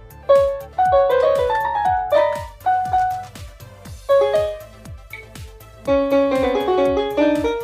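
Children's electronic keyboard playing a short melody of single notes in a piano-like tone, with a few two-note chords near the end, over the keyboard's built-in rhythm track ticking at a steady beat.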